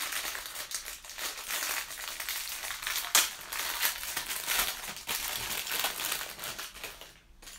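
Clear plastic packaging crinkling and crackling as it is handled and opened to free a metal medallion, with one sharper crackle about three seconds in. The crinkling dies away shortly before the end.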